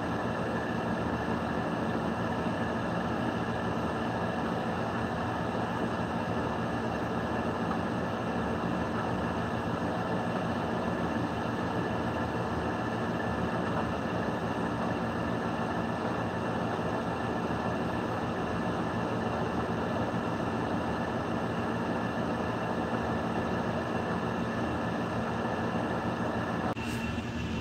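A steady mechanical hum over a constant hiss, holding several steady tones without change.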